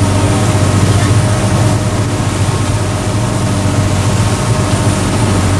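Ferry's engine running steadily at cruising speed, a low drone, under the rush of water churned along the hull.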